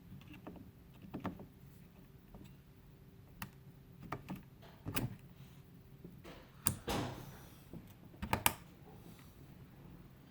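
Scattered clicks, taps and a brief rustle of RAM memory modules being handled and pressed into a motherboard's DIMM slots, the loudest a sharp click about two-thirds of the way in, over a faint steady hum.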